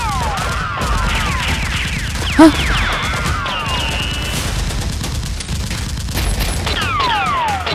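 Blaster and gunfire sound effects laid over the fight: rapid volleys of shots with repeated falling and arching laser-like whistles. A short loud cry comes about two and a half seconds in.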